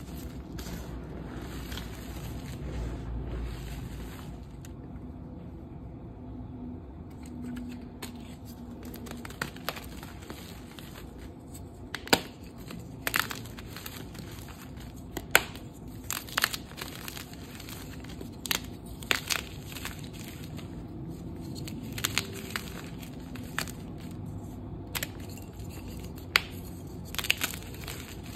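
Hands crumbling and squeezing dyed gym chalk and re-formed chalk blocks: a soft, dusty rustle at first, then scattered sharp crunching snaps as chunks of chalk break apart.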